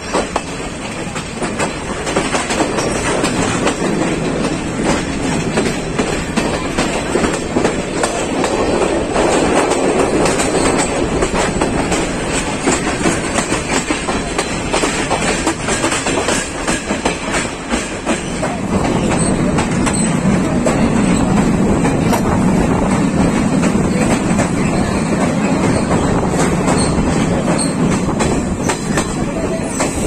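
Passenger train running along the line, wheels clattering over rail joints over a steady rumble.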